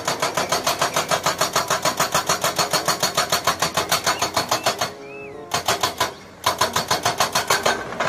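Hydraulic breaker on a Komatsu excavator hammering rock: a fast, even rattle of blows at about eight a second, stopping briefly twice, about five and six seconds in.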